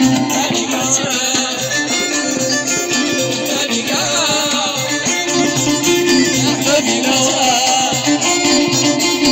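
Live Moroccan folk music played on violin, electric guitar and keyboard, with a repeating beat and a wavering melody line.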